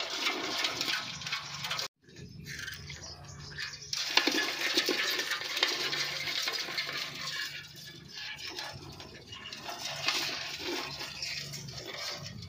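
A hand splashing and sloshing through a shallow pool of muddy water, grabbing at eels and crabs. The splashing cuts off suddenly for a moment about two seconds in, then carries on.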